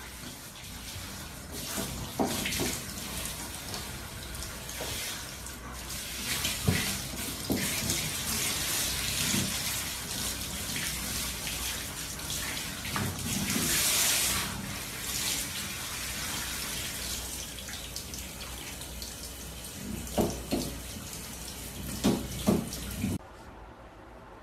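Water spraying from a handheld shower head onto a dog in a shower stall: a steady hiss of running water with a few short knocks along the way. It cuts off abruptly about a second before the end.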